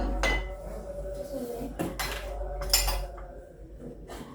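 Cutlery and plates clinking and knocking as food is served and handled, a handful of sharp clinks spread across a few seconds.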